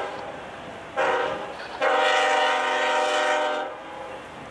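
Diesel freight locomotive's multi-chime air horn. It sounds a short blast about a second in, then a long blast of about two seconds, which together close a long-long-short-long grade-crossing signal.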